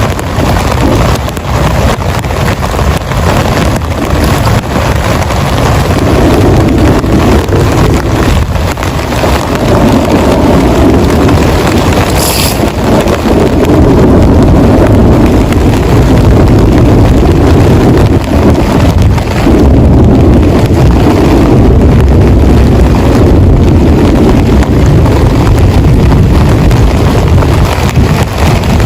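Heavy rain drumming steadily on a tent, a dense patter of drops that grows a little heavier partway through.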